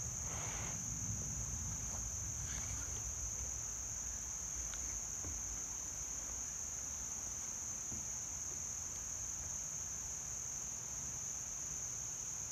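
Continuous high-pitched insect chorus of summer crickets or cicadas, steady throughout, over a low rumble. Faint rustles of body movement on a yoga mat come in the first few seconds.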